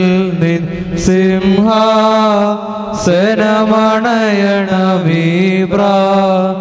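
Syriac-rite liturgical chant: long, drawn-out sung lines over a steady low drone, with short breaks about one and three seconds in.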